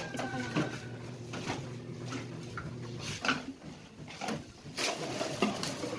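Empty plastic drink bottles clattering and crinkling as they are handled and stuffed into a woven plastic sack, giving irregular clicks and rustles.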